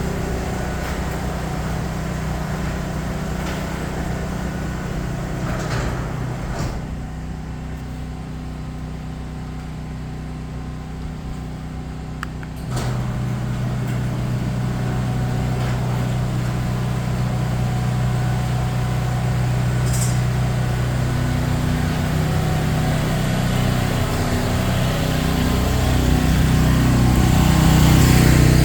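Garage door opener motor running with a steady low hum. About thirteen seconds in there is a sharp click, and the hum becomes louder and stronger, building toward the end.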